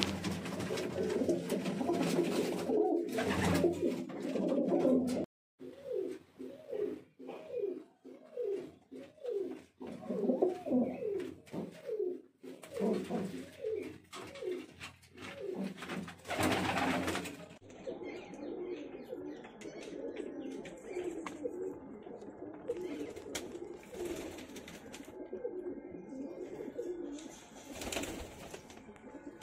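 Domestic pigeons cooing: a run of repeated coos, each dropping in pitch, about two a second, which turns softer and more blurred in the second half.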